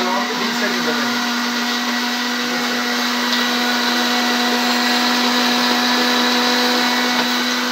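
Hyundai countertop blender running steadily, blending orange segments with water into juice: an even motor whine with a hiss of liquid churning in the jar.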